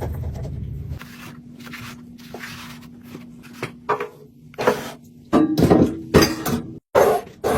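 Containers and kitchen items being handled and set down, a series of knocks and clatters that get louder and closer together in the second half. A low hum stops abruptly about a second in.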